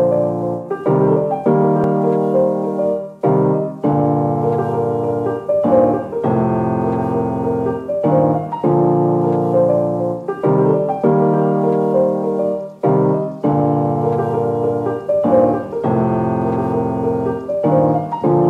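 Background music: a piano playing held chords that change about once a second.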